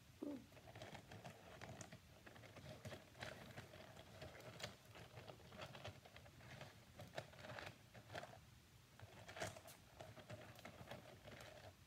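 Small stones and crystals clicking and knocking against each other and the table as they are handled and set down, in an irregular run of light clicks.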